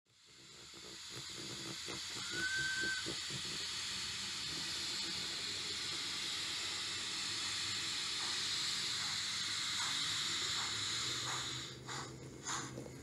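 Model steam locomotive's sound module giving a steady steam hiss as the engine moves off, with a brief high whistle about two and a half seconds in. Near the end, rhythmic chuffs start at about two a second.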